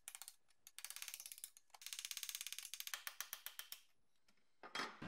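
A hammer striking a chisel as it cuts through the rusty steel floor panel of a BMW E30 Touring: runs of light, sharp metallic taps, about a dozen a second, broken by short pauses and a longer pause near the end.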